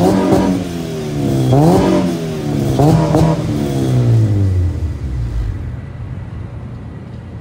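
2009 Honda Civic Si's K20Z3 2.0-litre four-cylinder revved in place through a Rev9 full exhaust with Skunk2 header and test pipe. It gives two quick throttle blips, then falls back and settles to a steady idle about halfway through.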